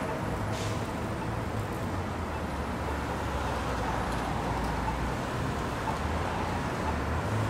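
City street traffic: cars and a pickup truck driving past close by, over a steady low engine rumble.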